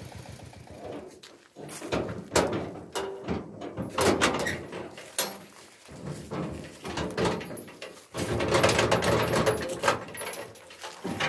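Irregular wooden knocks, bangs and scraping as a farm trailer's wooden side boards are handled and a person climbs onto the wooden trailer bed.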